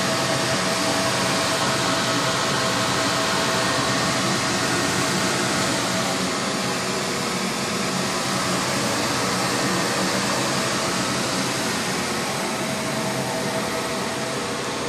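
Steady whooshing fan noise of rack-mounted network switches and the room's cooling in a comms room, with a faint steady tone through it.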